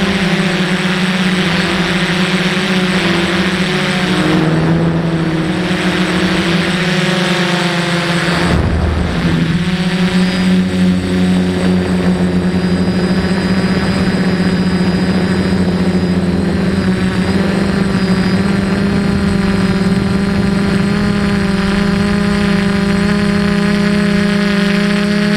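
DJI F450 quadcopter's four electric motors and propellers buzzing in flight, a steady multi-tone whine close to the microphone. The pitch shifts briefly about eight seconds in, then settles again.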